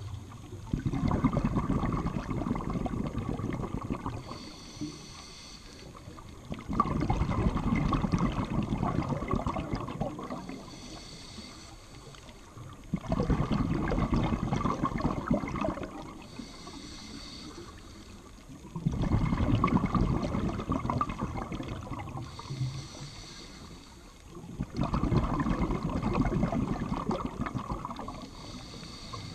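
Scuba diver breathing underwater through a regulator: five exhalations about six seconds apart, each a burst of bubbling lasting about three seconds, with a faint hiss in the quiet gap before each one.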